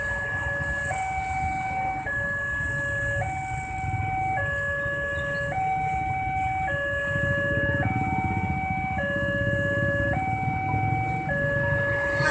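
Railway level-crossing warning alarm sounding with the barriers down for an approaching train: an electronic two-tone signal, a higher and a lower tone alternating about once a second, over a low rumble.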